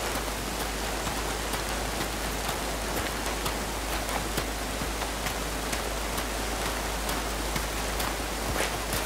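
Steady hiss of rain falling in a bare forest, with soft footsteps on leaf litter about twice a second and a low steady hum underneath.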